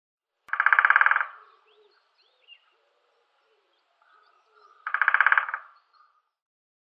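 Woodpecker drumming: two rapid drum rolls on wood, each under a second long and about four seconds apart. Faint bird chirps sound between them.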